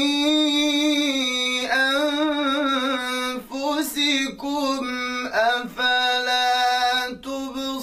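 A man reciting the Quran in the melodic tajweed style, holding long ornamented notes with a few short pauses between phrases.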